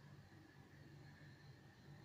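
Near silence: faint steady low hum of room tone.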